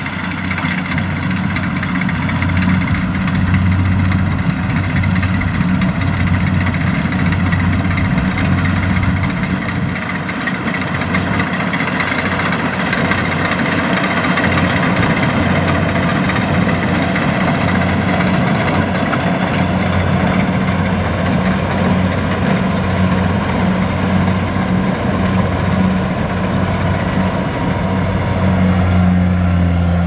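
Kubota DC70 combine harvester running steadily while cutting and threshing rice: a constant diesel engine drone under the broad whir of the header and threshing machinery.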